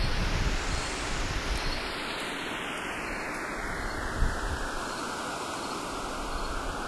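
A steady rush of surf-like noise whose brightness sweeps slowly: it opens up for about a second, dulls gradually over the next few seconds, and brightens again near the end. It is a filter-swept noise effect.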